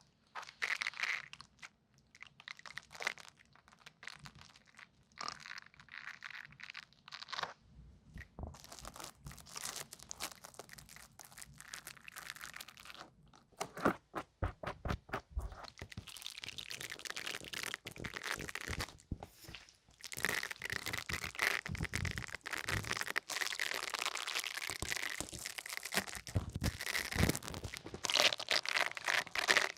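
Close-miked ASMR crunching and crinkling: scattered crisp crunches and taps at first, growing denser, then continuous crackly crinkling from about twenty seconds in.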